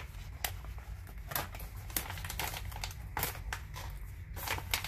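Packaging crinkling and rustling as it is handled, with irregular sharp crackles and a few light clicks.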